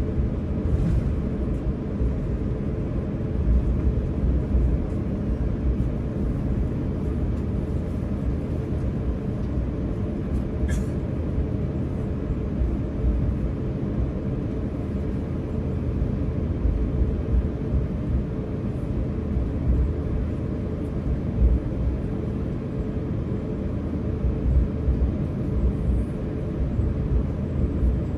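Steady low rumble inside an Airbus A350-900's cabin on the runway at takeoff: its Rolls-Royce Trent XWB engines and the wheels on the runway, heard through the fuselage. A single short click about eleven seconds in.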